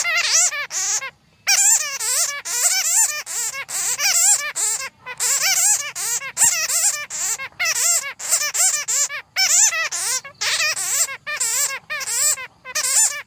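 Bats squeaking and chattering in a dense, rapid run of high, wavering calls with short breaks, the audible social calls of a group of bats, played as a lure for trapping them.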